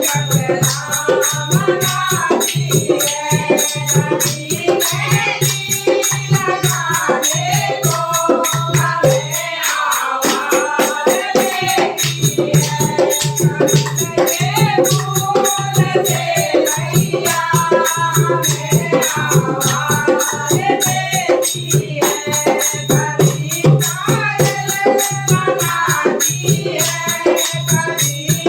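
Hindu devotional bhajan: singing over a fast, steady rhythm of rattling hand percussion.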